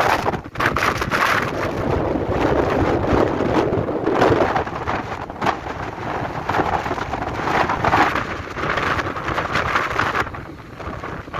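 Gale-force storm wind gusting and buffeting the microphone: a loud, rushing roar that swells and dips with each gust, with crackling pops from the wind hitting the mic, easing briefly near the end.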